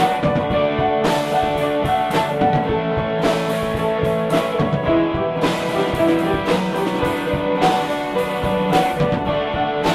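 Rock music with guitar and a drum kit, held notes over a steady beat.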